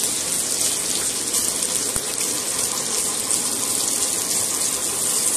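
Sliced onions sizzling steadily in hot oil in a steel pot as a wooden spatula stirs them, sautéing on the way to brown.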